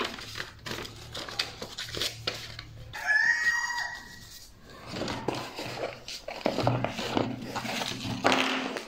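Paper instruction leaflet rustling as it is leafed through, folded and pushed into the pocket of a drone's zip case, with scattered crinkles and light handling knocks. A drawn-out animal call sounds in the background about three seconds in.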